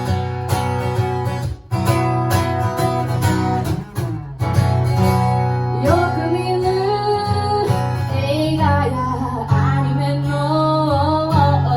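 Acoustic guitar strummed in chords, with a woman's singing voice coming in about six seconds in and holding a wavering melody over the guitar.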